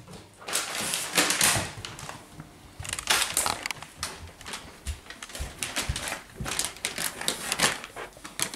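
Plastic treat pouch crinkling and rustling in irregular bursts as a puppy carries it off in his mouth and chews at it.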